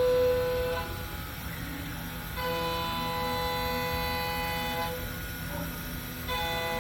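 Haas GM-2-5AX gantry CNC router running, its motors giving off steady whining tones that stop and start again twice, changing pitch between stretches as the machine moves.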